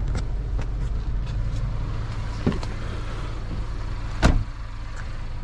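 Infiniti QX30 car door shutting with a sharp thump a little past four seconds in, after a lighter click near the middle. A steady low car hum runs underneath and drops once the door is shut.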